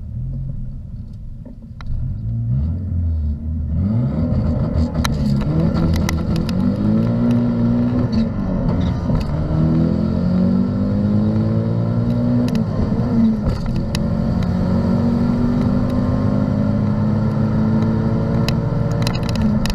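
Turbocharged 4G63 2.0-litre four-cylinder of a drag car heard from inside the cabin: idling at the line, then launching about two seconds in and pulling hard at full throttle down the quarter mile, its pitch rising through each gear and dropping back at every shift, running steadier over the last several seconds.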